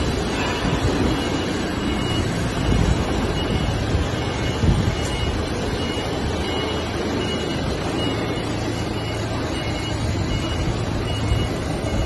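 Forklift engine running steadily while it carries a heavy slurry pump, with a low hum under it. A faint high beep repeats steadily in the background.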